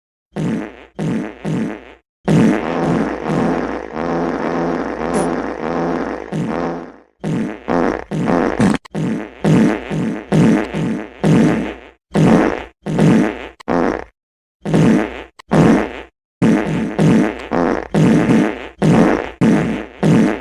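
A rapid series of fart sounds cut together with abrupt silences between them: mostly short, buzzy blasts, with one long drawn-out fart lasting about five seconds near the start.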